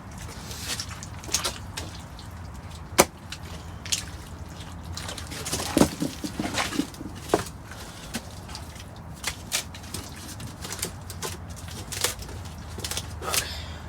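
Plywood sheets being handled and laid on a wet, muddy floor: scattered knocks, taps and scrapes of wood, the loudest about three and six seconds in, over a steady low rumble.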